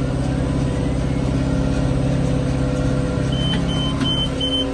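John Deere tractor engine running steadily under load while pulling a round baler. Near the end come four short, evenly spaced high-pitched electronic beeps.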